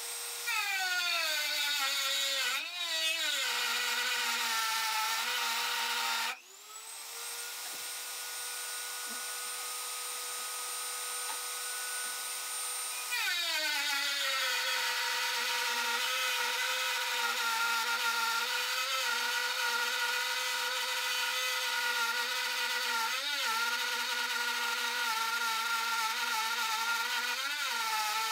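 Dremel rotary tool in a router table, routing the edge of MDF. Its high whine sags in pitch as the bit bites into the wood and wavers as the piece is fed. About six seconds in it cuts out and quickly spins back up. It runs free at full pitch until about halfway through, then drops again as cutting resumes.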